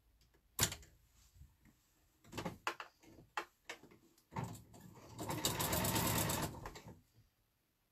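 Electric sewing machine stitching a half-inch seam: a few clicks and knocks, then a short run of stitching about four and a half seconds in and a longer fast run of about a second and a half that stops near the end.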